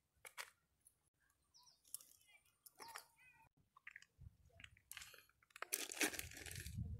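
Plastic zip-top bag crinkling and rustling as a hand handles it, loudest about six seconds in, after scattered light clicks and rustles.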